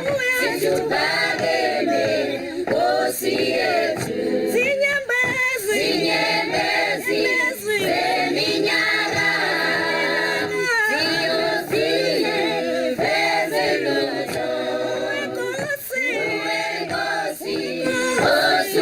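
A choir of male and female voices singing unaccompanied, several voice parts together in a flowing melody.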